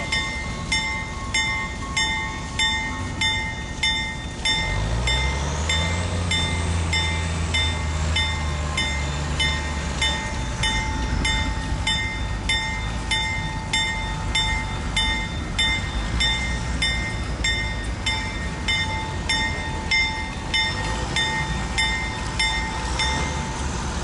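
A railroad warning bell rings steadily, about one and a half strokes a second. About five seconds in, a diesel locomotive engine revs up and runs under load for several seconds.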